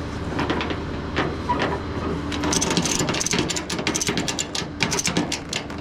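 Tow truck's engine running steadily while its towing gear works, with a run of rapid metallic clicking and rattling from about halfway through as the car is lifted.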